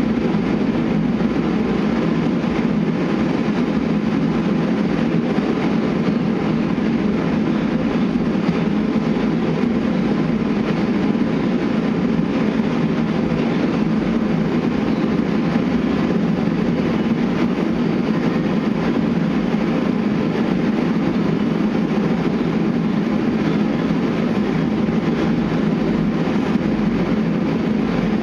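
A machine running steadily: an even, unbroken mechanical drone with a low hum.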